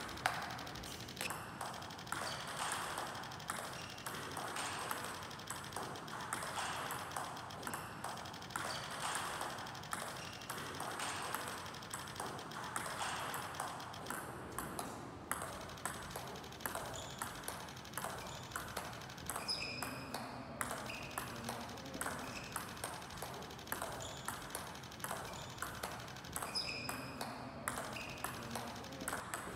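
A table tennis ball clicks sharply off the paddle and bounces on the table in a steady rally rhythm as the player chops and pushes it back. There are two brief squeaks, near 20 s and 27 s.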